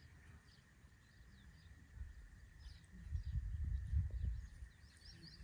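Faint countryside ambience: scattered short bird chirps over a thin, steady high tone, with a low rumble on the microphone that swells about three seconds in.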